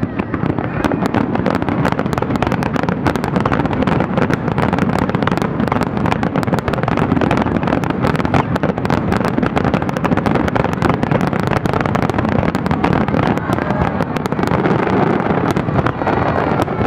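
Dense barrage of aerial firework shells bursting, many bangs in quick succession running together with crackling.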